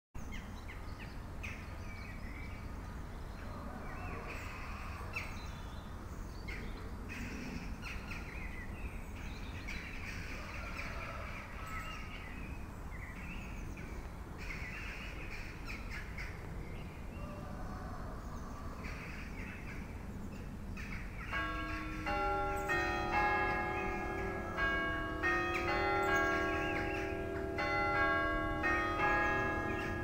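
Small birds chirping over a steady low rumble. About two-thirds of the way in, the church tower's bells start ringing, several bells of different pitch struck one after another in quick, overlapping succession.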